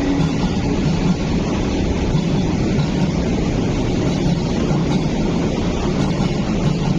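MTR East Rail Line MLR train, a Metro-Cammell electric multiple unit, running out along the track. It makes a loud, steady rumble with a low hum that wavers up and down.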